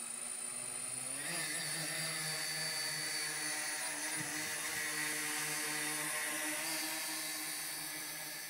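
Large camera multirotor drone's motors and propellers whirring: the pitch rises about a second in as the motors spool up for lift-off, then holds a steady hum while it climbs and flies away, growing fainter near the end.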